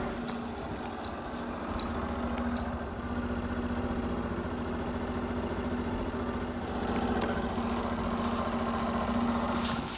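Small delivery motorbike engine running at a steady, even speed, with a few light clicks in the first few seconds.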